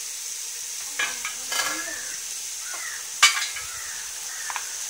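Biryani masala sizzling steadily in a steel pot on the stove, with a sharp metal clink against the pot about three seconds in.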